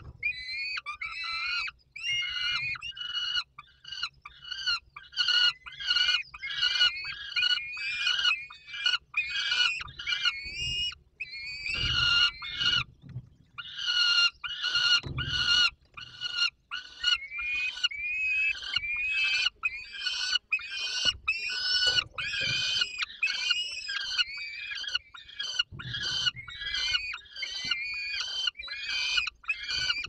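Young peregrine falcons calling over and over, a harsh wailing call about twice a second with a few short pauses, as they beg for food. A few dull knocks sound underneath.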